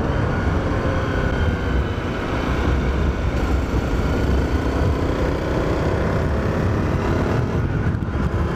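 Honda CRF250L's single-cylinder four-stroke engine running under way. Its note sinks a little at first and then climbs steadily from about halfway, as the bike slows for a turn and then pulls away.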